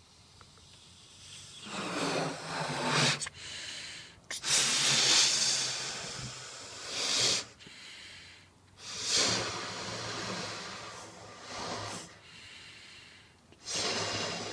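Exhaled breath rushing through the neck of a rubber balloon as a hissing whoosh, in about six separate bursts. A few bursts carry a low hum.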